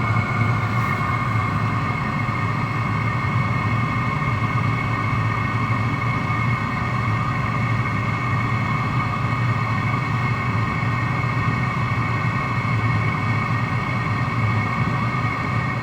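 5 kW Chinese diesel air heater running steadily once warmed up: a constant drone from its blower and burner, with a steady whine over a low hum.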